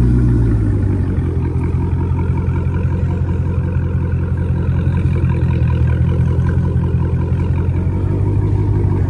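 Dodge Charger idling steadily, a low engine drone from its quad exhaust tips.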